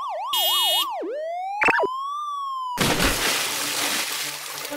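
Cartoon sound effects: a fast warbling police-car siren tone, broken by a short buzzy blast, then a rising whistle-like glide with a quick pop. From about three seconds in, a rush of splashing water.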